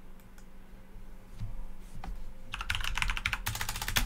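Fast typing on a computer keyboard: a quick run of key clicks that starts about two and a half seconds in, after a few faint isolated clicks.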